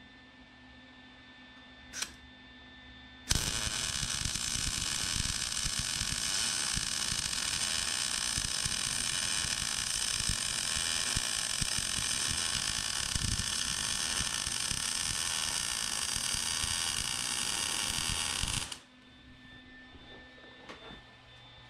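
MIG welder arc crackling steadily as a weld bead is laid on steel frame plates. It starts abruptly about three seconds in, runs for about fifteen seconds and cuts off sharply a few seconds before the end, with only a low hum and one click before it.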